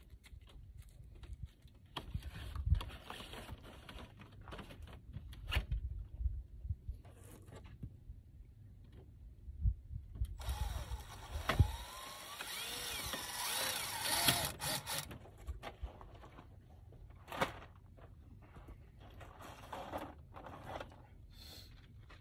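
Cordless drill driving screws into vinyl skirting panels, its motor whining up and down for a few seconds about halfway through. Scattered knocks and clatter of the panels being handled come before and after.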